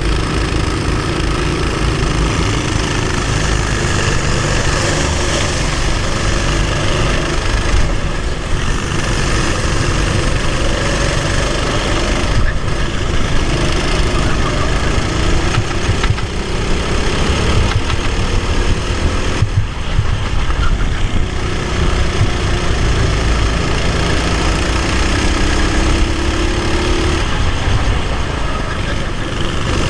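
Racing kart engine heard onboard, running hard under throttle: its pitch climbs in long rises as the kart gathers speed and falls back sharply several times as it slows, over a constant rush of wind and vibration.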